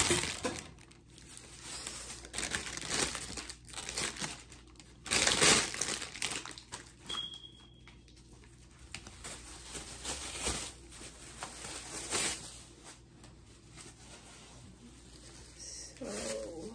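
Thin clear plastic packaging bags crinkling and rustling in irregular bursts as they are handled and opened, loudest about five seconds in.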